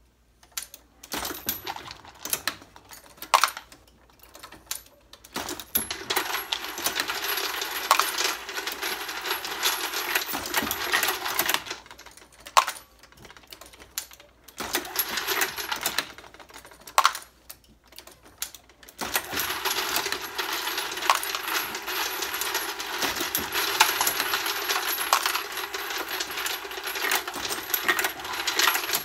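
Hornady case feeder running: its motor hums steadily while loose brass cases rattle and jingle in the hopper. It runs twice, from about five seconds in to about twelve, and again from about nineteen seconds to the end. In between come the separate metallic clicks and clunks of the progressive press being cycled.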